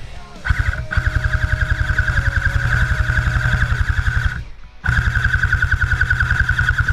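Airsoft electric gun firing on full auto in two long bursts, a rapid even rattle of shots with a steady gearbox whine, broken by a short pause about two-thirds of the way through.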